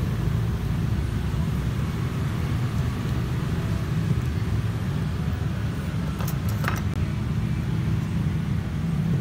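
Steady low rumble of background noise, traffic-like, with a few short sharp clicks about six and a half seconds in.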